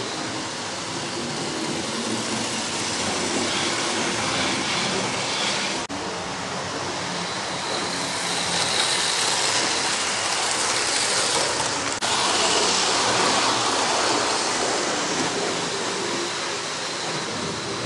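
Model railway trains running on the layout: a steady whirr of the locomotive motors and rattle of wheels on the track, louder in the middle as a train passes close. The sound breaks off for a moment twice, about six and twelve seconds in.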